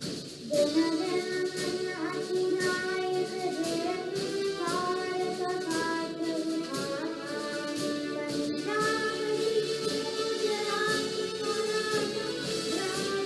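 Music with a clear melody line, coming in about half a second in.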